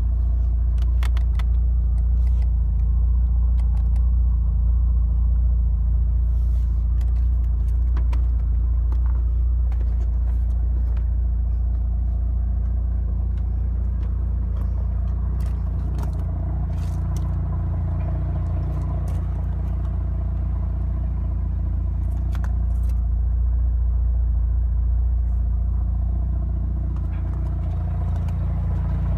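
1994 Mazda RX-7's twin-turbo 13B rotary engine idling steadily, low and even, heard from inside the cabin. A few light clicks sound over it now and then.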